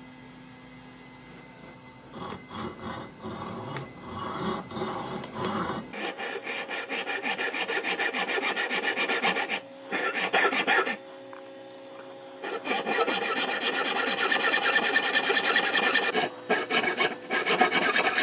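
Hacksaw cutting through the metal rear aperture sight leaf of an AR-15, slicing halfway across the aperture to make an open notch. Rasping back-and-forth strokes start lightly about two seconds in, then run quick and even. They break off twice past the middle, once briefly and once for about a second and a half, and then resume.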